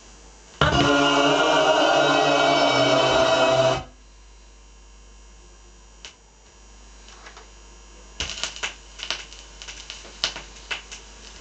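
Music played from a vinyl record on a Technics SL-BD22 turntable for about three seconds, cut off abruptly, then a quiet stretch of low background noise. Near the end the stylus is set down on the record, giving a run of clicks and pops of surface crackle.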